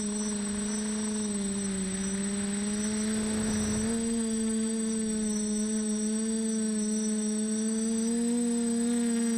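Multicopter electric motors and propellers buzzing steadily in flight. The pitch drifts a little higher about four seconds in and again near the end, as the rotor speed changes.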